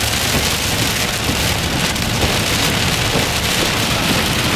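Heavy rain hitting a car's windshield and roof, heard from inside the car as a steady, dense hiss.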